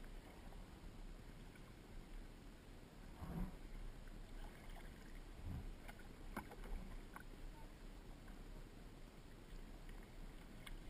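Faint water noise from kayaking, with a few short paddle splashes around the middle.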